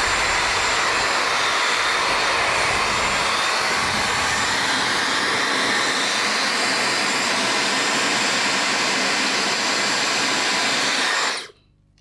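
Dyson hair dryer running steadily on a higher power setting: an even rush of air with a faint high-pitched motor whine, without cutting out now that its faulty cord has been repaired. It is switched off about eleven seconds in and stops suddenly.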